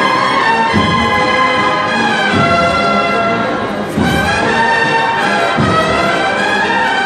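Cornet and drum band playing a slow processional march: bugle-like cornets carry the melody over a deep drum beat about every second and a half.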